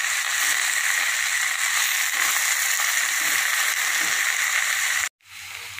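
Chopped amaranth greens sizzling in hot oil in a stainless steel pan as they are sautéed with a wooden spatula, a steady hiss that cuts off suddenly about five seconds in.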